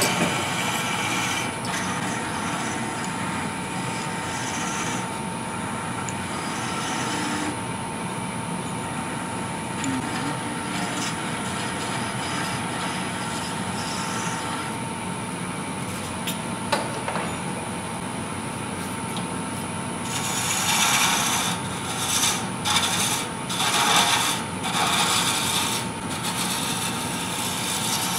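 Wood lathe running with a steady whine while a 5/16-inch wrench is held against the spinning wooden tenon as a size gauge. In the last third a turning tool cuts the wood in a series of short, uneven scraping bursts, bringing the tenon down to size.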